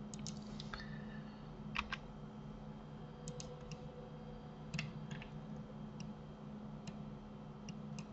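Computer keyboard and mouse clicking: about a dozen short, irregularly spaced taps over a steady low hum.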